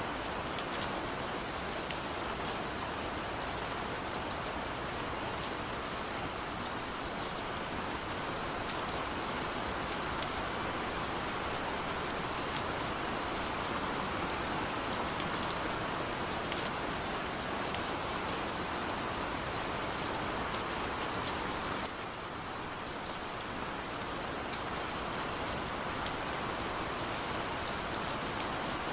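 Steady rain falling, a constant hiss with many separate drops ticking on a surface. The rain eases slightly about two-thirds of the way through and then builds back up.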